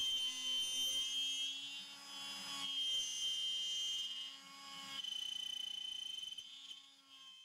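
High-Z CNC-STEP router's spindle running with a steady high whine while the cutter mills a block of wood, dipping in level twice and fading out near the end.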